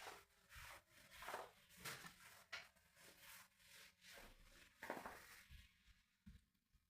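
Faint, irregular rustling and rubbing noises, a series of short scrapes that thin out near the end.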